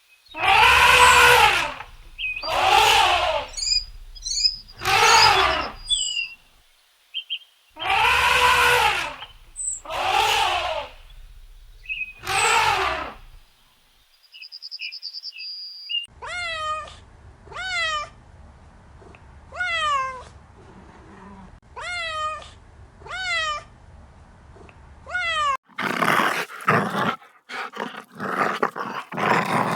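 A run of animal calls: for about 13 seconds, loud drawn-out cat meows, with a few faint chirps among them. Then about ten short, high calls, each falling in pitch, roughly one a second. Near the end, rough growling sets in.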